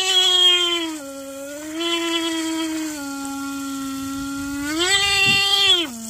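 A two-wheeler electric horn sounding continuously while submerged in a tank of water, its tone wavering: three times it swells louder and a little higher in pitch, then sags back. The water over it is thrown up in a spray as it sounds.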